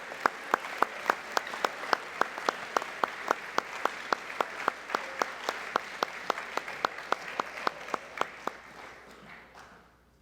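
Audience applauding. One clapper close by stands out with sharp, even claps about four a second, and the applause dies away near the end.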